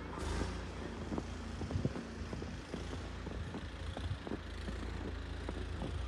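Strong wind buffeting the microphone in a steady low rumble, with boots crunching in fresh snow at a walking pace, about two steps a second.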